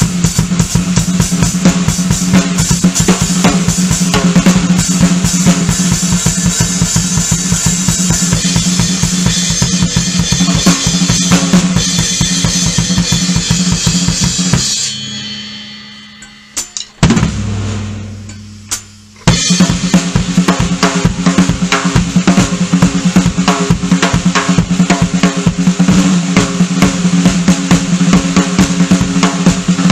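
Acoustic drum kit played in a fast solo: dense strokes on snare, toms and bass drum with cymbals. About halfway through the playing stops and the kit rings out for a few seconds, broken by a couple of single hits, one a low drum left ringing, before the fast playing starts again.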